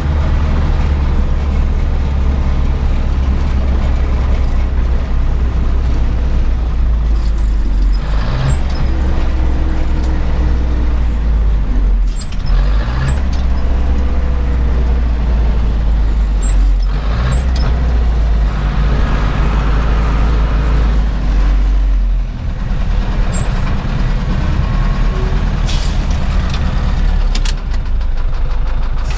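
Zetor 7011 tractor's four-cylinder diesel engine running steadily while the tractor drives, with scattered knocks and rattles and brief dips in the engine note.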